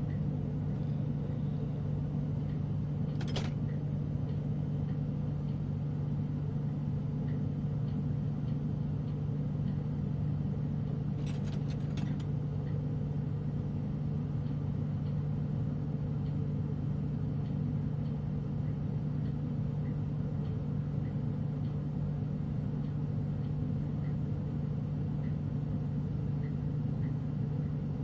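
Glass lampworking torch burning with a steady low hum and rush. There is a brief click about three seconds in and a few faint clicks around eleven to twelve seconds.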